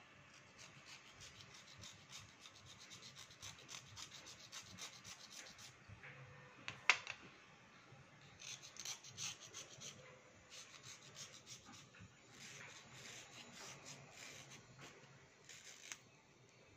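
Slate pencil being scraped with a small metal blade: runs of quick rasping strokes, several a second, with short pauses between runs. One sharp click about seven seconds in.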